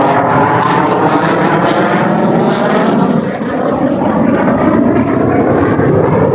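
Fighter jet's engine noise during a low display pass, a loud steady rush, with tones that sweep in pitch through the first half as the jet passes.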